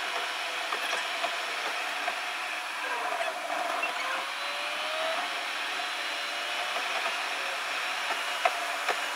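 Car travelling on an expressway, heard from inside the cabin: a steady rush of road and engine noise, with a faint rising tone about four seconds in and a few light clicks.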